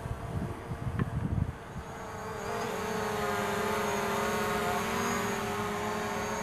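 DJI quadcopter drone's propellers whining as it comes down close overhead, a steady multi-tone buzz that grows louder from about two seconds in and then holds. Wind buffets the microphone for the first second and a half.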